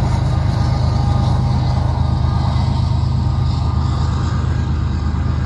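Freight train autorack cars rolling past, their steel wheels on the rails giving a steady, loud rumble.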